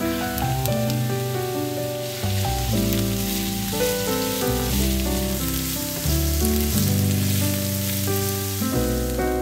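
Diced onion and carrot sizzling in hot oil in a nonstick frying pan, stirred with a wooden spatula, with a steady hiss and light scattered crackles. Background music with changing chords plays underneath.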